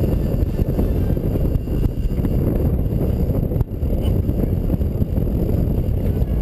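Wind buffeting the microphone on an open boat at sea, a steady low rumble with a brief lull about three and a half seconds in.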